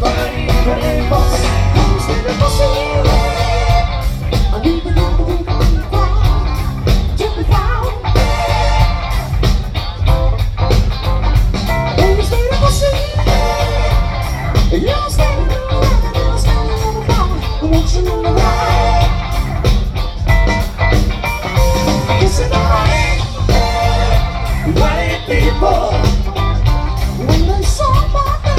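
Rock song with guitar, a steady bass-heavy beat and a singing voice.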